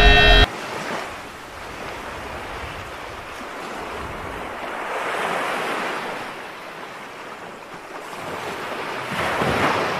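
Music cuts off abruptly about half a second in, leaving the rushing wash of sea waves, which swells and falls back, peaking about halfway through and again near the end.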